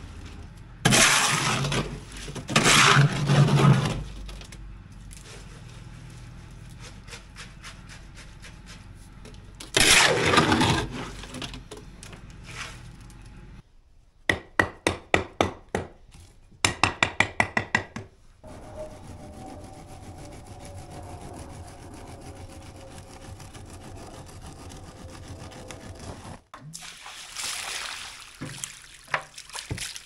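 Steel shovel scraping and tossing loose stone and asphalt millings into a wooden concrete form, in several loud scrapes. In the middle come two quick runs of sharp knocks, then scraping as wet concrete is placed and worked level.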